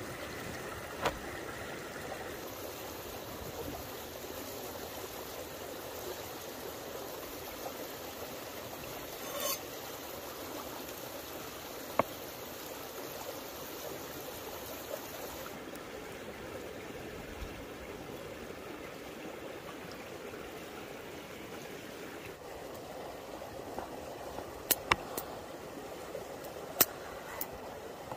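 Small stream running steadily over rocks, with a few sharp taps on a wooden board, several close together near the end.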